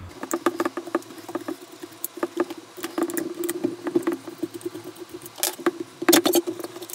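Rapid, irregular small clicks and rattles of small blaster parts being handled, over a steady hum. The loudest clicks come about five and a half and six seconds in.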